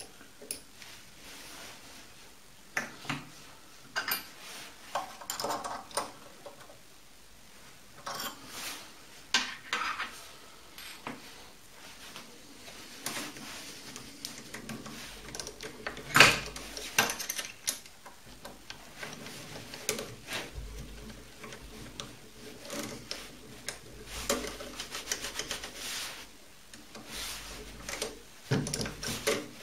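Irregular metallic clinks and knocks of metal tools and parts being handled and set down on a mini-lathe's milling setup, with the loudest knock about halfway through.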